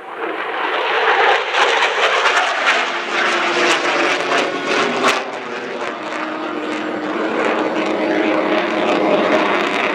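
USAF F-16 Fighting Falcon's F110-GE-129 jet engine roaring past during a maximum performance climb. The roar swells over the first second, is rough and crackly for the first few seconds, then settles into a steadier roar.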